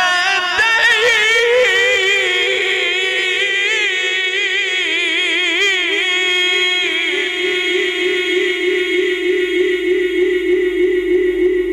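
Solo male Quran recitation (tajweed, mujawwad style) in one unbroken breath. It opens with a fast, ornamented melismatic run that climbs and falls, then settles about seven seconds in onto one long held note with a steady vibrato.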